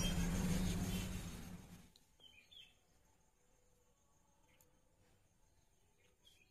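A loud, steady noise with a low hum fades out over the first two seconds. It leaves quiet outdoor ambience with a few faint bird chirps.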